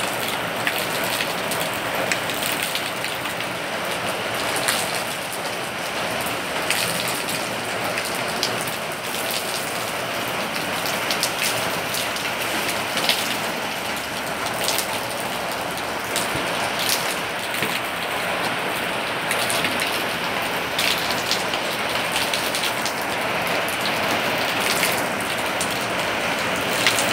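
Rain shower falling steadily: an even hiss with many separate drops and drips tapping.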